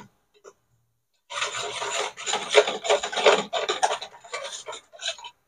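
Wire balloon whisk beating a thin milk mixture in a plastic bowl, its wires scraping and rubbing against the bowl in rapid strokes. The whisking starts about a second in and tails off near the end.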